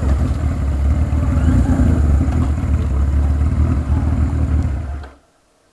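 A 1980 Kawasaki KZ1000 inline-four motorcycle running steadily while being ridden, with a heavy low rumble; the sound cuts off abruptly about five seconds in.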